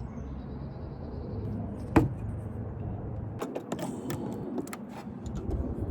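Hand work on a car hood strut's metal end fitting and spring clip: one sharp click about two seconds in, then a run of lighter clicks and rattles.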